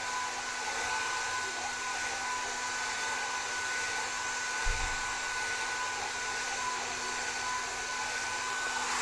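Hair dryer blowing steadily, a constant rush of air with a faint motor whine, and one brief low thump about halfway through.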